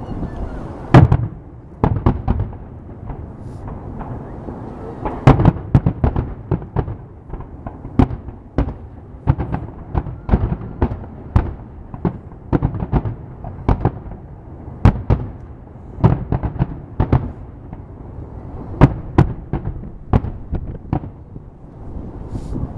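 Aerial fireworks bursting: a rapid, irregular run of sharp bangs, some in quick clusters, over a continuous low rumble of distant explosions.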